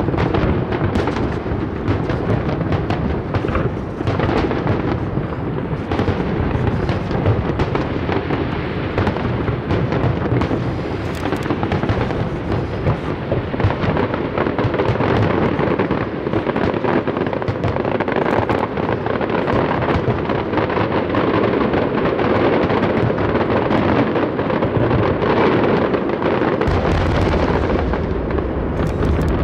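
Fireworks display with aerial shells bursting in rapid, overlapping bangs and crackles. A deeper rumble joins about 27 seconds in.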